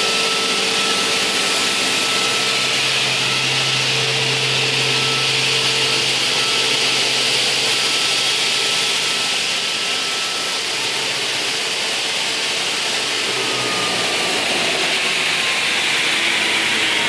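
OGAM PO-340 crawler-feed multi-rip saw running with a steady, loud whir and a constant hum that holds unchanged throughout.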